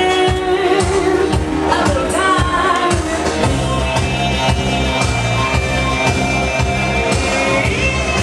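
Pop song with a female lead vocal playing loudly over a hall's sound system, with a steady beat; the singer holds a long high note near the end.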